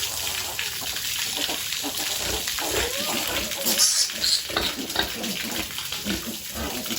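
Water running and splashing as piglets are washed, with the piglets grunting and giving a short high squeal about four seconds in.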